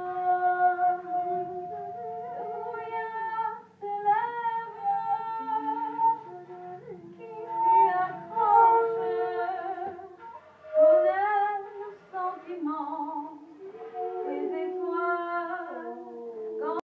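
Women's voices singing unaccompanied, holding long notes, with two melodic lines overlapping at times. The singing cuts off suddenly at the end.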